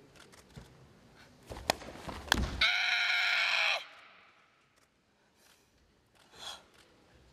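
A karateka's kiai: one loud shout held for about a second, coming right after two sharp snaps of a kata technique. A shorter, softer swish follows near the end.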